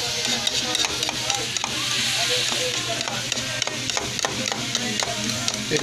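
Spoon beating eggs in a plastic bowl, a run of quick, uneven clicks against the bowl, over a steady hiss of frying.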